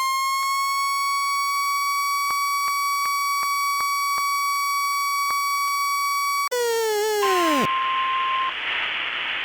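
A siren held at one steady pitch, with faint clicks, cuts off and winds down about six and a half seconds in. A plain steady beep of about a second follows over a hiss of static.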